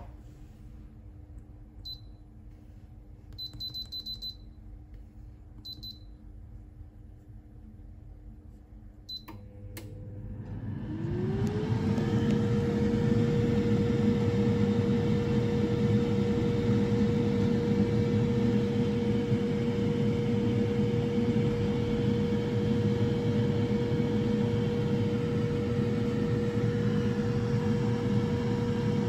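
Air fryer's touch control panel giving a few short, high beeps as its settings are entered, then the air fryer's fan starting up about nine seconds in, its hum rising in pitch over a couple of seconds and then running steadily and much louder.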